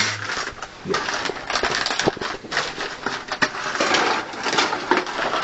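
Hands handling and rummaging among computer parts: irregular rustling with many small clicks and knocks.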